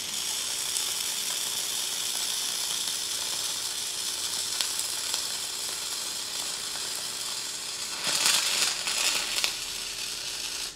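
Wire-feed welding arc crackling steadily as a bead is run on steel tube. It gets louder and rougher for a second or so near the end, then stops abruptly.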